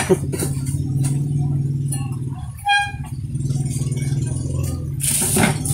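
A steady low motor hum, like an engine running, that dips briefly midway, with a short ping near the middle and a loud rustling scrape near the end.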